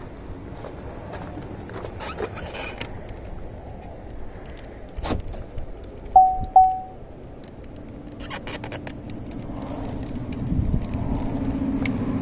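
The minivan's warning chime dings twice in quick succession about six seconds in. Around it are handling clicks and rustles, and a steady low hum starts near the end.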